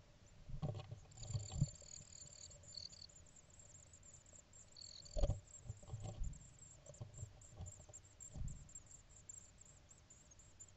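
Great tit nestlings begging with thin, very high cheeping that quickens into rapid repeated calls in the second half. Under it, an adult great tit moves in the nest box with soft bumps and rustling; the loudest bump comes about five seconds in.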